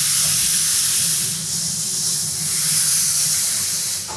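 Steady, loud hiss with a low rumble underneath, from inside a CNC machining centre's enclosure while no cutting is going on, as of air or coolant mist blowing through the machine.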